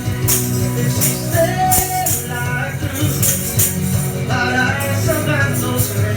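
A worship song playing: a sung melody over bass and band, with a tambourine or shaker keeping a steady beat.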